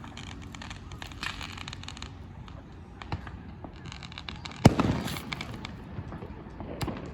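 Fireworks going off: scattered crackling, then one loud bang a little under five seconds in with a crackling trail after it, and a few more pops near the end.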